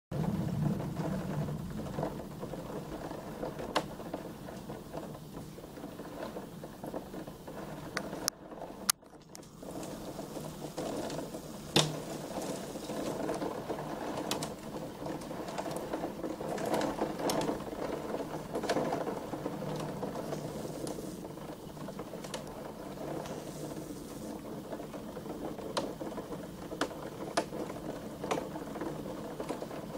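Hail and heavy rain drumming on window glass and the sill in a dense, rapid clatter, with sharp knocks from single hailstones scattered through it.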